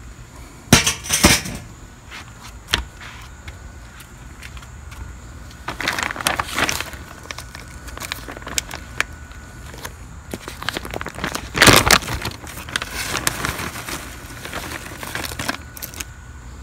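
Plastic bag of whiskey-barrel smoking wood chips crinkling in several bursts as a hand rummages in it, with dry wood chips rattling and clicking. The loudest burst comes about twelve seconds in, followed by a few seconds of crackly rustling.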